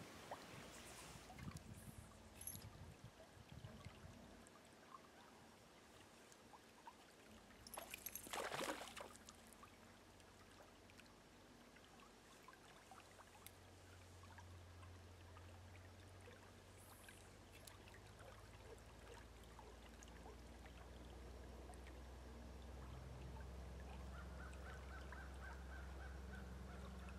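Faint trickle of a small trout stream, near silence, with a brief rush of noise about eight seconds in. A low steady hum and a steady mid-pitched tone build up through the second half.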